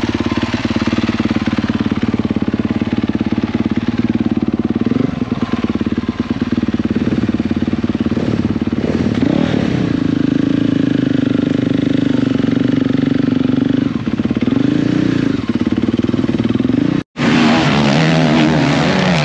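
Motocross bike engine running at high revs, dipping and rising again a few times. It breaks off abruptly near the end and comes back with a rougher tone.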